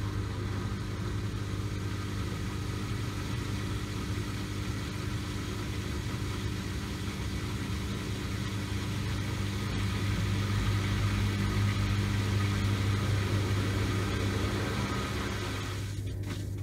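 Zanussi compact washing machine's drain pump running with a steady hum and hiss while an air lock in the drain pipe stops it moving water. The air lock is put down to the drain pipe being quite high. Near the end the sound changes as the pump starts to pump out.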